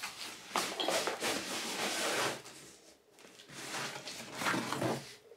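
Cardboard shipping box being handled and opened, its flaps rustling and scraping, in two spells with a short lull about three seconds in.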